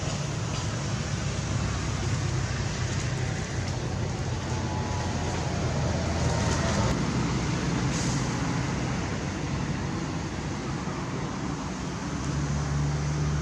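Steady low motor rumble over a constant wash of noise, like road traffic or a running engine.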